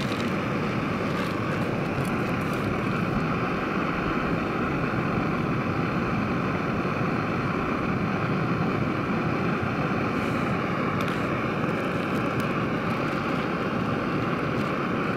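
Backpacking gas-canister stove burning steadily under a small metal pot, giving an even hissing roar. A few light clicks of a spoon against the pot as the soup is stirred.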